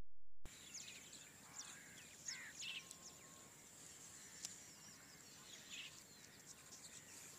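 Small birds chirping in short, quick falling calls over a faint steady outdoor background, the calls thickest in the first few seconds. A brief low hum at the very start cuts off, and there is a single sharp click about four and a half seconds in.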